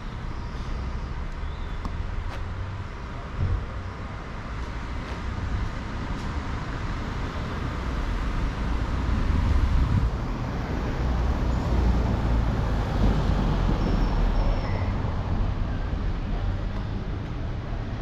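Outdoor street ambience: a steady low rumble of road traffic that swells somewhat about halfway through.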